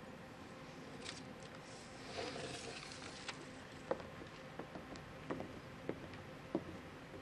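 Faint background hush of a large hall with scattered small knocks and shuffling, a few a second or less, between speakers.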